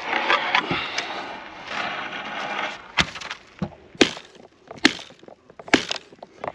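Dry driftwood being broken up and chopped with a hatchet: a stretch of crackling and splintering wood, then five sharp wooden cracks about a second apart.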